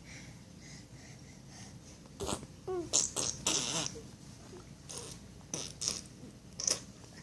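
A baby making a string of short mouth noises: a couple of squeaks falling in pitch about two seconds in, then breathy, sputtering tooting sounds, and a few shorter bursts near the end.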